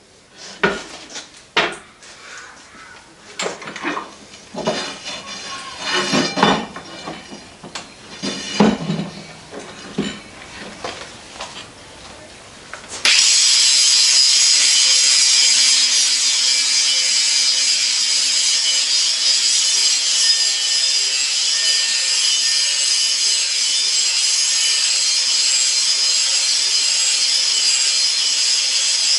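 Irregular knocks, clanks and scrapes of steel being handled, then a grinding machine starts abruptly about halfway through and runs steadily, grinding out the inside of a steel chain sprocket to enlarge its bore.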